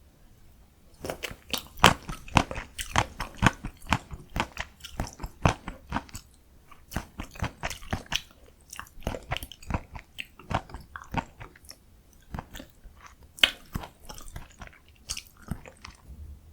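A person chewing a mouthful of cold spicy bibim noodles right at the microphone: a dense run of wet, sharp mouth clicks and smacks, starting about a second in.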